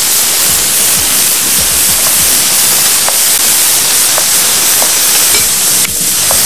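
Diced zucchini, purple sweet potato and cherry tomatoes sizzling in a frying pan, a steady hiss with a few faint ticks over the middle of the stretch.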